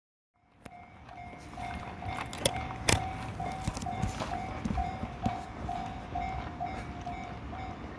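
Japanese railway level crossing's warning bell ringing, a repeating clanging tone about two and a half strikes a second that starts about half a second in, with a few sharp knocks among it.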